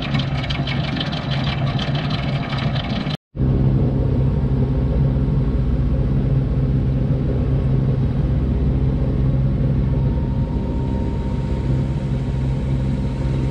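Sailboat's engine running steadily under way, a constant low hum. The first three seconds carry extra rushing noise over the engine; the sound cuts out for a moment and then resumes as a steady engine hum.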